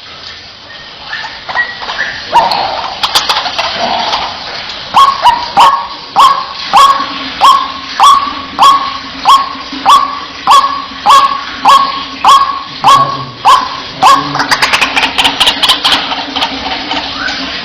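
White-breasted waterhen calling: a long run of loud, evenly repeated 'wak' notes, about three every two seconds, preceded and followed by more jumbled overlapping calling.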